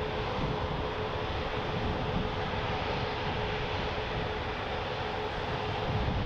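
Jet airliner engines running steadily, a constant rushing noise with a steady whine under it that fades near the end, with wind buffeting the microphone.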